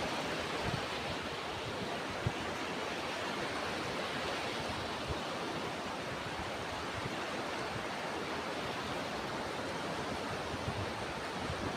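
Ocean surf washing steadily, an even rushing noise, with a few brief low thumps.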